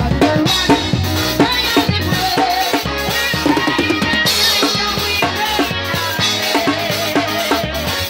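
A live gospel band playing, with a drum kit (kick, snare and rimshots) keeping a steady beat under bass and other pitched instruments.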